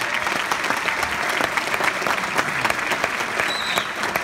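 Audience applauding, many hands clapping at once at a steady level, with a short high note about three and a half seconds in.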